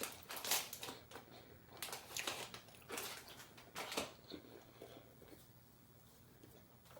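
Several short crinkling, crunching noises close to the microphone in the first four seconds, then only quiet room tone.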